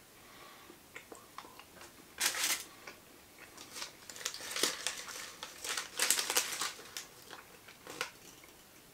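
Chocolate bar wrapper crinkling in the hands, in several short rustling bursts.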